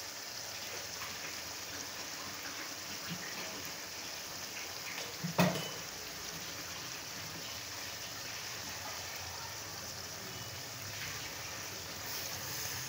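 A pot of fried onions, tomatoes and ginger-garlic simmering in added water on the stove, with a steady bubbling hiss. There is one sharp knock about five seconds in.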